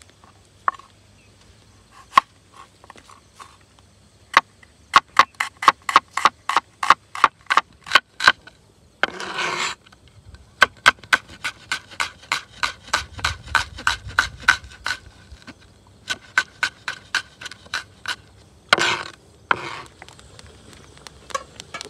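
Cleaver-style knife slicing a red onion on a plastic cutting board: a steady run of sharp chops, about four a second, broken twice by a brief scraping noise.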